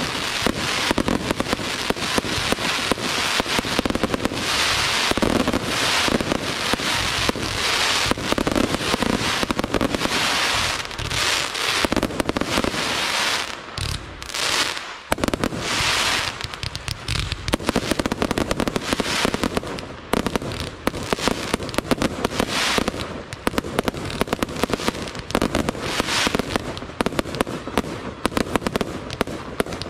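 Aerial fireworks going off in a rapid, dense barrage of bursting shells and crackling stars, many sharp reports running into one another. The barrage thins briefly about halfway through, then picks up again.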